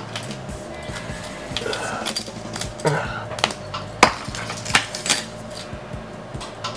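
Scattered small clicks and light metallic clatter from handling an iPad and a small metal SIM-eject tool as the SIM tray is pulled out. The sharpest click comes about four seconds in.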